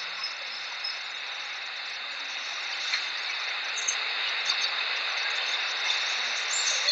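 Steady background hiss with a faint high, even ringing band above it; no voice.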